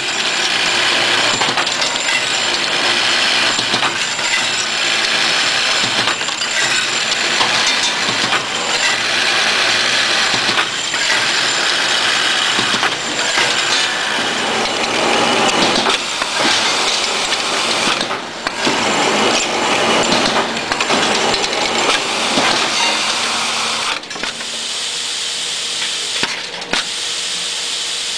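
Bolt parts-feeder machine running, with a steady, dense mechanical noise that dips briefly a few times in the second half.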